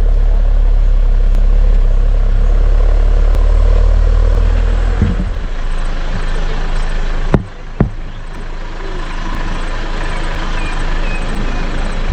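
A Mitsubishi 4x4 driving, with a steady low engine and road rumble that eases after about five seconds. Two sharp knocks come about a second and a half later.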